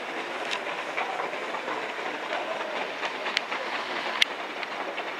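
Steady hiss of rain with scattered sharp ticks of drops striking close by. The loudest tick comes a little past four seconds in.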